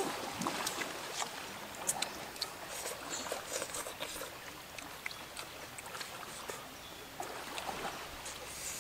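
Close-up eating sounds of a person chewing and slurping sour soup with elephant ear stalks: wet mouth noises made of many small irregular clicks and smacks.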